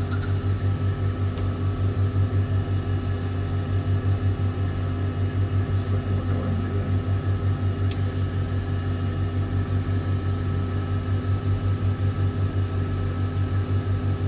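3D printer's hot-end cooling fans running steadily: a low hum that pulses about five times a second, with a few faint steady whines above it.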